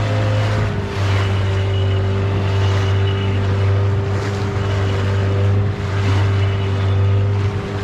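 Outboard motor driving a small inflatable boat at steady speed, a constant low drone. Rushing water and wind noise swell and fade over it.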